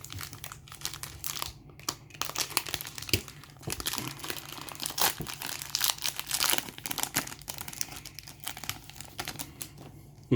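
Trading-card pack being handled: the plastic wrapper crinkling and rustling in irregular crackles, with some tearing, as the cards are worked out of it.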